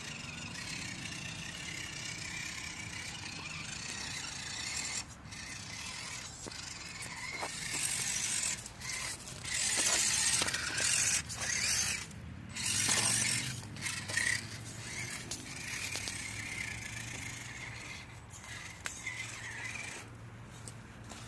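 A 1/10 scale RC rock crawler's electric motor and geared drivetrain whining as the throttle is worked on and off, with louder scraping bursts in the middle as it claws over the course's obstacles.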